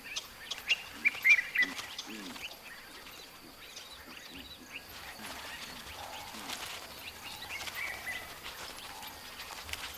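Quiet natural bush ambience with short chirping calls, a cluster of them about a second in.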